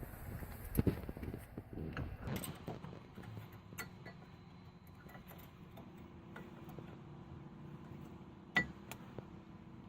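Small metallic clicks and clinks of new brake pads being fitted into a disc brake caliper bracket, with a louder knock about a second in and another near the end.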